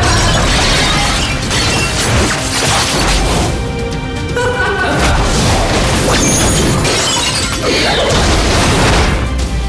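Loud action-trailer music over a rapid run of fight sound effects: sharp hits, swishes and crashes.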